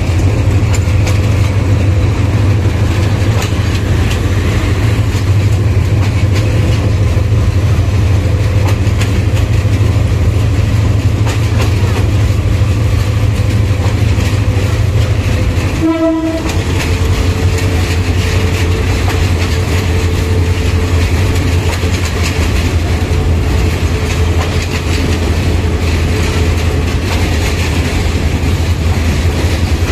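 Parabat Express passenger train running on the rails: a steady, loud, heavy rumble of wheels and carriages with some clickety-clack. The sound cuts out briefly about halfway, then the rumble carries on.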